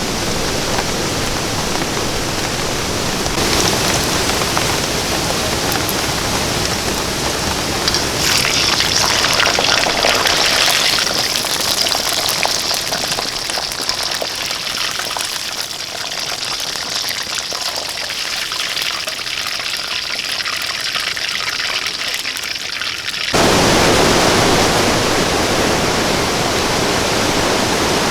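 Steady rushing water noise with no distinct tones. It changes character a few times and jumps abruptly louder about 23 seconds in.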